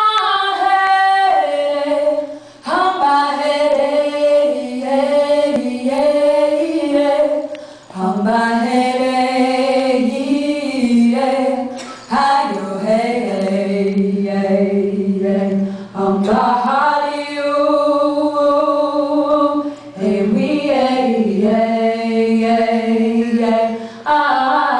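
Two women singing together in harmony, unaccompanied, holding long notes in phrases of about four seconds each.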